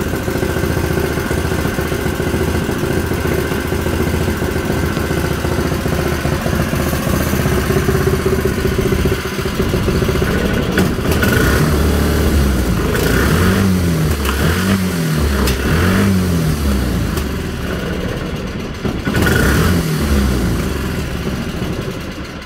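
Stage 2 Honda GX200 single-cylinder engine, fitted with a Tillotson TCT mechanical fuel injection carburetor, running on its first start after the install. It runs steadily at first. About halfway through it is revved in short blips, roughly one a second, with one more rev near the end.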